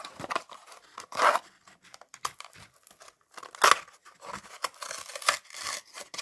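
Cardboard and plastic packaging of a Matchbox die-cast car being torn open by hand, in a series of irregular rips and crinkles, loudest about a second in and again near the middle.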